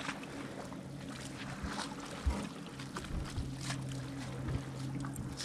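A motor on the fishing boat humming steadily at a low pitch, with scattered light knocks.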